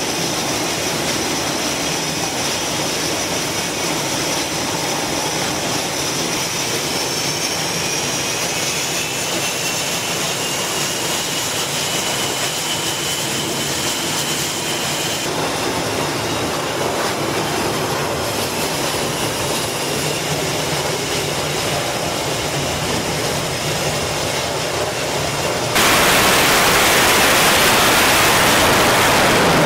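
EA-6B Prowler's twin turbojets running at the catapult with a steady high whine that rises in pitch about eight seconds in. About 26 seconds in a sudden, much louder jet roar breaks in as the aircraft goes to full power and is catapulted off the deck.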